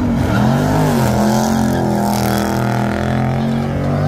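Muscle car engine revving: its pitch climbs and drops twice in the first second, then it holds a steady, loud note.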